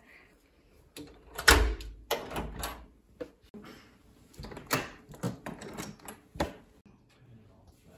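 A door being handled in the dark: an irregular run of clicks, knocks and rattles from its latch and handle, the loudest about one and a half seconds in.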